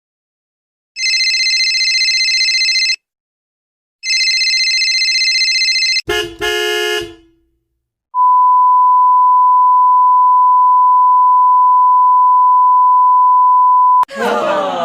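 A run of separate sound effects: two ringing electronic bursts of about two seconds each, a short honk, then a steady single-pitch beep held for about six seconds. A different, jumbled sound starts just before the end.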